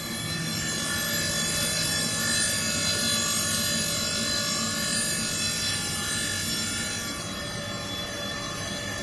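Circular blade grinding machine running: a steady machine hum with a high grinding hiss that is strongest in the middle and eases off about seven seconds in.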